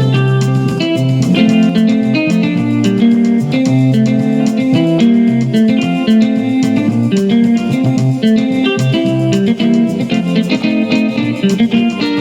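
Yamaha PSR keyboard playing a lively Ghanaian praise-style pattern on a guitar voice, with plucked-sounding repeated notes over a bass line played alongside.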